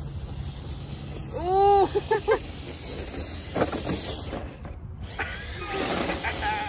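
Traxxas TRX-4 Sport RC trucks running hard over dry grass, with electric motor whine and tyre noise. About a second and a half in there is a loud call that rises and falls in pitch, followed by three short ones. Around three and a half seconds in come a few sharp knocks as one truck tips over.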